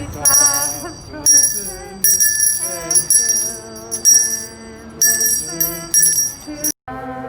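Handbells rung in short shaken bursts, about one a second, over people singing Christmas carols. Everything drops out for a moment near the end.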